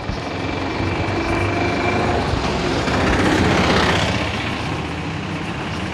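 A motor vehicle passing close by. Its engine and road noise build to a peak about three and a half seconds in, then fade.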